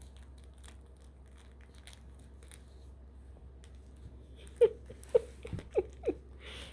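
Kittens mewing: about five short, quick mews in a row a little past the middle, after a stretch of soft rustling and small clicks.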